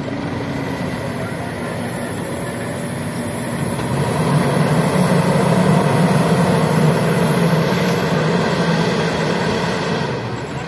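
Heavy diesel machinery engine running steadily. It grows louder about four seconds in and eases back near the end.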